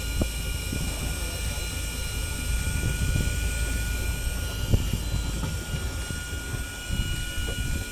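Fishing boat's engine running with a steady low rumble and a thin constant whine above it. Two sharp knocks come through, one just after the start and a louder one a little past halfway.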